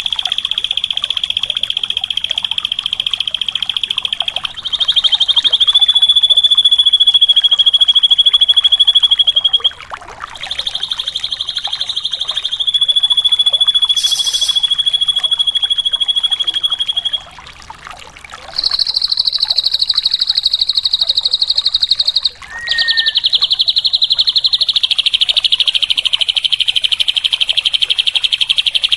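Drongo (srigunting) song: long, very rapid buzzing trills held at a high, nearly steady pitch, each running several seconds. There are short breaks about a third of the way in, a little past halfway and about three-quarters in, and the pitch steps up slightly on some trills.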